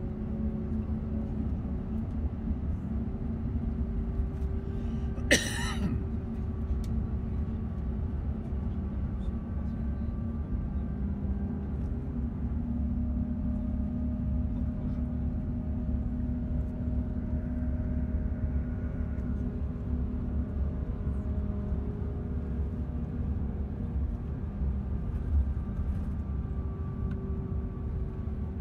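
Steady road rumble and engine hum heard from inside a moving vehicle. A brief sharp noise cuts in about five seconds in.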